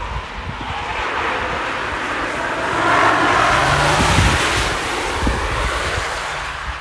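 Estate car driving past at speed: a rush of tyre and engine noise that swells to its loudest about three to four seconds in, then fades as it moves away. Wind buffets the microphone throughout.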